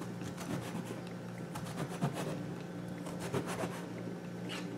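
Chef's knife scoring the cut face of a halved eggplant on a cutting mat: a series of soft scraping strokes as the blade is drawn through the flesh and across the mat.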